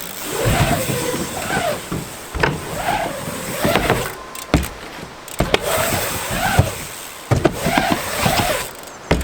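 Wind buffeting the microphone with a low rumble, over a string of short squeaks that rise and fall in pitch, about one a second.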